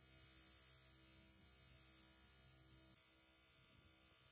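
Near silence: a faint steady hum.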